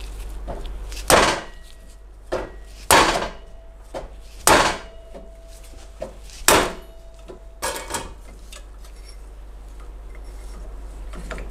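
Five sharp hammer blows, about one every one and a half seconds, with lighter knocks in between, struck on locking pliers clamped to an alternator pulley to break its right-hand-threaded fit on the shaft loose. The blows stop about eight seconds in.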